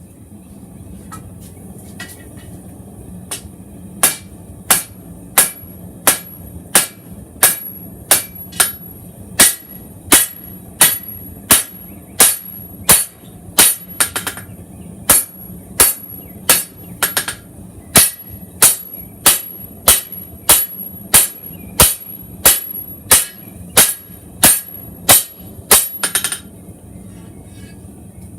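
Hand hammer striking a hot steel knife blank on an anvil in a steady rhythm of sharp, ringing blows, about one and a half a second. The blows start a few seconds in and stop shortly before the end. This is hand forging, drawing out the tapered point of a chef's knife blade from 1/4 inch stock.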